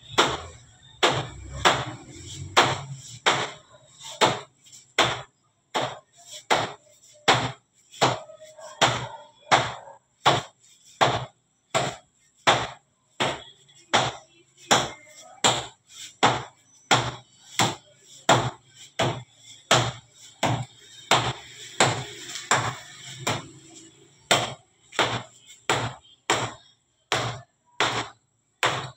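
Metal bench scraper chopping a log of bread dough into portions, each cut ending in a sharp knock on the stainless-steel table, in a steady rhythm of a little under two strokes a second.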